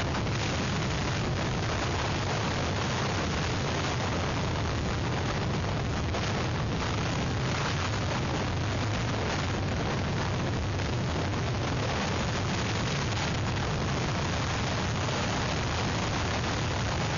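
Strong hurricane wind buffeting an outdoor webcam's microphone: a steady rushing hiss with a low rumble underneath.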